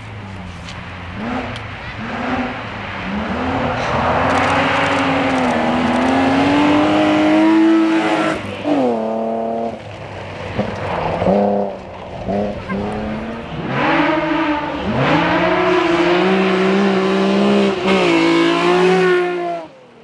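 Rally cars at full throttle on a gravel special stage, one after another. The engines rev hard and climb through the gears. The revs drop steeply about eight and a half seconds in, short stabs of throttle follow, then a long high pull cuts off abruptly near the end.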